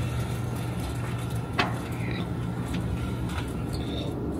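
Electric sliding-gate operator motor running with a steady low hum as the driveway gate slides, with one sharp click about a second and a half in.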